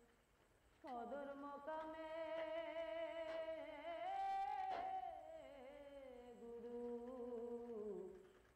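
A single unaccompanied voice singing a slow melody in long, wavering held notes, with a short pause about a second in and another near the end.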